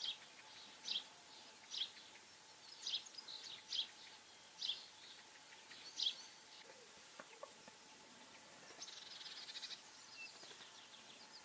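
Wild songbird calls: a short, high note repeated about once a second, seven or eight times, then a quick trill about nine seconds in.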